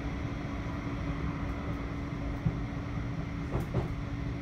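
Inside a Bombardier Flexity 2 tram running between stops: a steady rumble of wheels and running gear under a constant low hum. There is a sharp knock about two and a half seconds in and a couple of brief rattles near the end.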